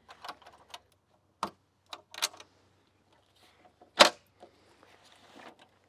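Side latches of a folding solar-panel suitcase being unclipped: a few light clicks, then one sharp, much louder snap about four seconds in as a latch springs open.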